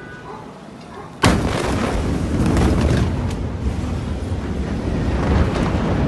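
Blast wave of a huge ammonium nitrate explosion reaching the microphone: a sudden sharp crack about a second in, followed by a loud, continuing rumble with crackling.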